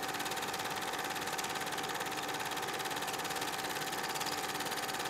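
8mm cine projector running steadily: an even, rapid mechanical chatter with a constant whine underneath.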